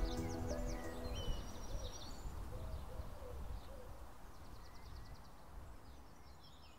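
The tail of a background music track: held chords fade out in the first second or so, leaving birdsong (high chirps and a quick trill) and a few low hooting calls over a soft hiss, slowly fading away.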